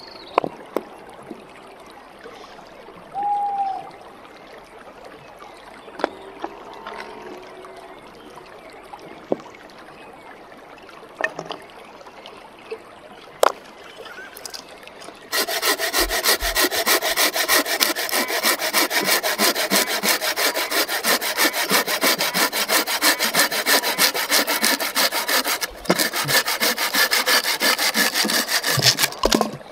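A blade sawing through a wooden branch: steady, rapid back-and-forth strokes that start about halfway through and break off once briefly. Before that, a few sharp knocks of stones being set down.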